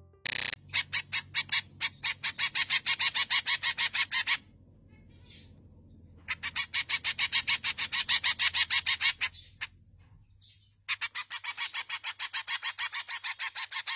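A young finch begging while it is hand-fed with a syringe: rapid, high chirps, about six a second, in three runs a few seconds long with short pauses between.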